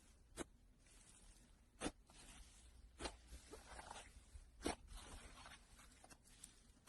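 Slime being pressed and squeezed by hand: faint crackling with about four sharp little clicks or pops spaced a second or so apart.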